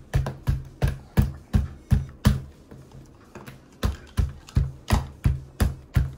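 Background music with a steady, punchy drum beat of about three beats a second over a low bass line, easing off briefly near the middle before picking up again.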